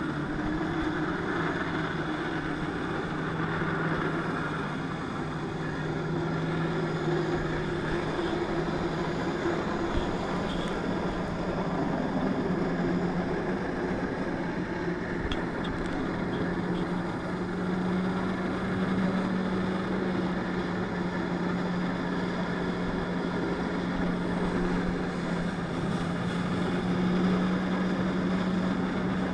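Jet ski engine running steadily under load as it pumps water through the hose to a flyboard. Its pitch rises slightly about twelve seconds in, then holds.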